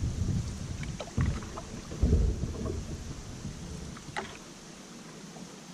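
Solo Kevlar canoe being paddled: water swishing with the paddle strokes, low thumps about a second and two seconds in, and a few light clicks, growing quieter in the second half.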